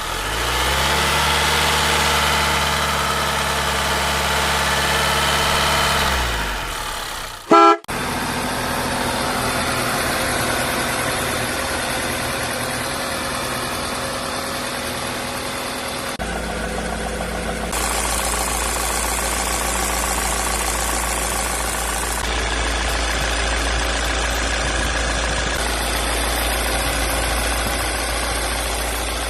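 Car engine running in a series of cut-together clips, its sound changing abruptly several times, with a brief loud sweeping sound about eight seconds in.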